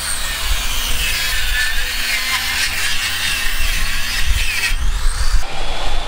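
Table saw cutting through a thick 2x lumber board: a high, whining cut over the motor's steady hum, with the pitch wavering as the board is fed. The cut stops abruptly about five seconds in.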